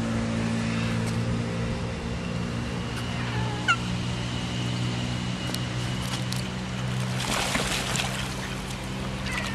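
Ducks calling at the pond's edge, with a burst of splashing about seven seconds in as the flock churns the water, over a steady low hum.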